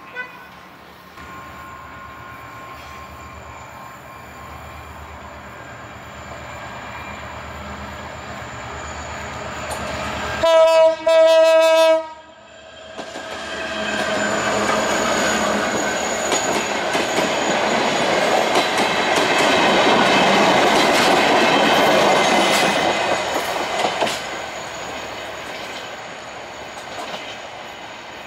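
Diesel locomotive approaching with its engine running, then sounding its horn in two short, loud blasts about ten seconds in. The locomotive and passenger coaches then pass close by in a loud rush, wheels clicking over the rail joints, before fading as the train moves away.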